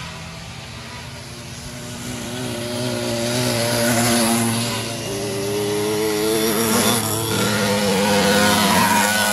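Small two-stroke engines of racing motorized bicycles passing by, their pitch rising and falling as they rev and go past. The sound swells loudest about four seconds in and again near the end.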